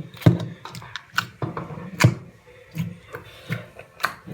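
Foam slime squished and pressed between the hands, giving off irregular crackling pops and clicks.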